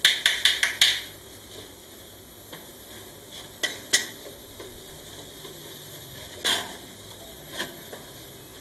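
Household clatter of metal utensils being handled: a quick run of about five sharp clicks and clinks at the start, two more sharp clinks about three and a half seconds in, then a duller clatter and a last knock.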